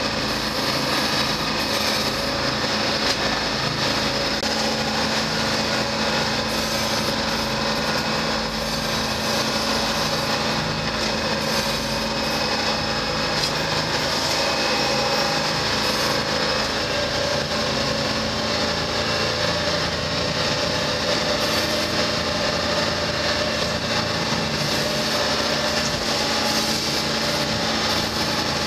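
A 44ft Motor Lifeboat's twin diesel engines running steadily under way, heard from inside the wheelhouse: an even drone with a constant hum and a broad hiss over it.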